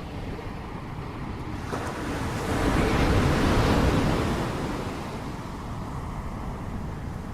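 Ocean surf: a wave builds about two seconds in, crashes loudest a second or two later, then washes back to a low steady rumble.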